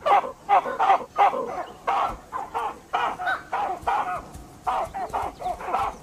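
A troop of olive baboons calling in alarm: a rapid, overlapping run of harsh barks and screams, about three a second, as they mob a leopard.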